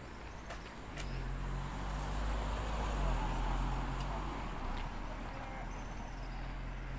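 A motor vehicle passing on the street: its engine hum and tyre noise swell over the first few seconds, then ease off.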